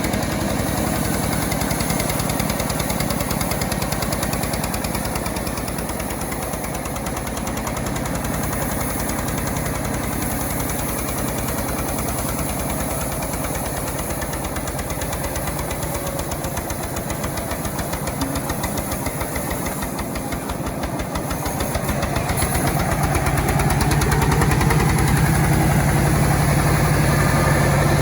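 Engine of a homemade chainsaw running steadily, growing louder for the last few seconds.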